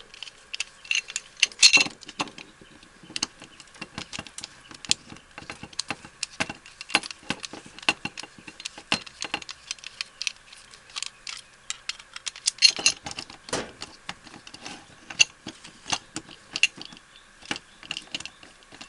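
A screwdriver backing out the two screws on the back of a deadbolt, with irregular small metal clicks and clinks as the lock parts are handled.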